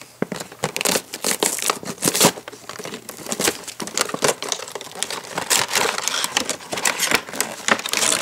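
A cardboard toy box being torn open by hand and its clear plastic insert pulled out: crinkling plastic and tearing card, with many small irregular clicks and rustles.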